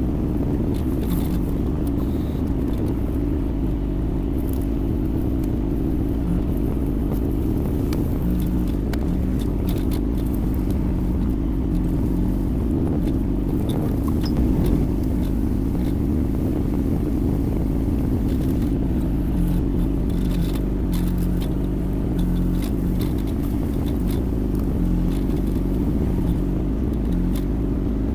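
Yanmar diesel engine of a Kymron XH20D mini excavator running steadily while it works, with scattered light clicks and scrapes.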